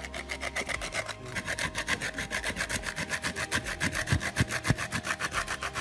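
A spoon scraping quickly and rhythmically against a metal bowl, about eight strokes a second, as a dipping sauce is stirred.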